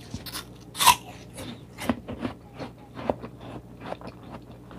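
Crisp crunch of a bite into a slice of raw apple about a second in, followed by chewing with irregular crunching.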